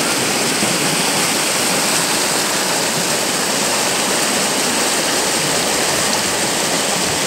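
Muddy monsoon floodwater rushing and churning over a rocky channel: a steady, loud rush of water.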